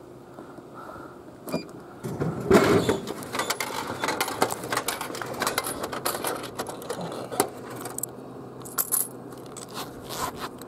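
Coins jingling and clinking as they are taken from a coin purse and fed into a drink vending machine's coin slot, a flurry of small irregular clicks starting about two seconds in.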